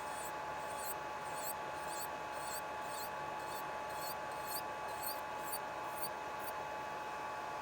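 A small electric motor runs with a steady whine. Over it, short scratchy strokes come about twice a second as gel nail polish is abraded, and they stop near the end.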